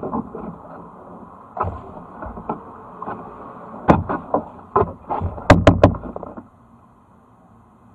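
Kayak paddle strokes under a concrete bridge: splashes and sharp knocks of the paddle, becoming more frequent, with a quick cluster of loud knocks about five and a half seconds in.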